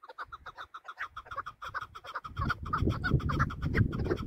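Chukar partridge calling, a fast run of short repeated clucking notes, several a second. A low rumbling noise comes in beneath the calls about two seconds in and grows louder.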